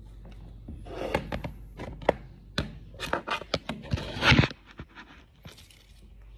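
Handling noise of a phone held at close range: a quick string of scrapes, knocks and clicks over the first four and a half seconds, loudest at about four seconds in, then quieter.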